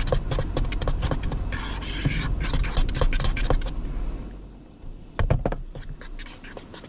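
A fork clicking and scraping against a bowl as a runny beer batter is stirred, in quick irregular strokes. A low rumble underneath fades out about two-thirds of the way through.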